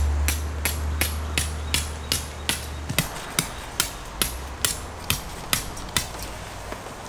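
Tent pegs being hammered into the ground: a steady run of sharp strikes, about two or three a second, that spread out near the end. A low steady hum sits under the first few seconds.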